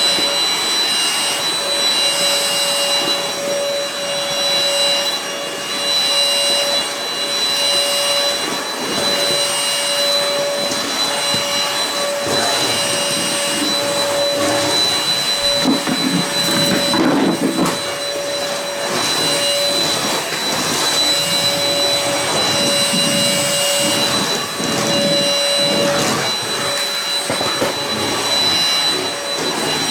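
Beldray 22.2 V cordless lithium-ion stick vacuum running on its higher (turbo) power setting while vacuuming: a steady motor whine over rushing air, wavering in level as the cleaner is pushed and pulled, with a heavier, rougher stretch a little past the middle.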